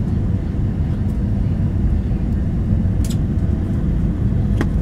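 Steady low rumble of an airliner's jet engines and airflow, heard inside the passenger cabin during the descent to land. There are two faint clicks, about three seconds and four and a half seconds in.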